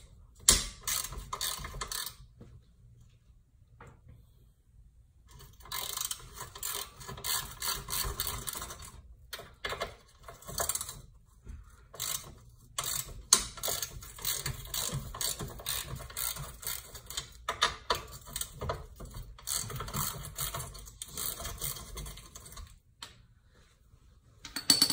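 Hand ratchet wrench clicking in quick runs, with pauses, as bolts on the underside of the front axle are turned. A single sharp clack near the end.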